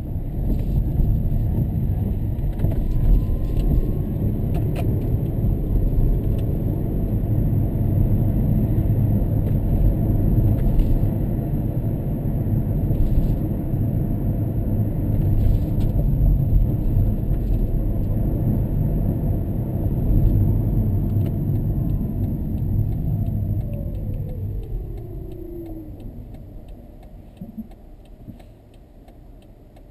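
Steady low road and tyre rumble inside a Toyota Estima Hybrid's cabin while driving. Near the end it fades away as the car slows to a stop, with a whine that falls in pitch as it decelerates.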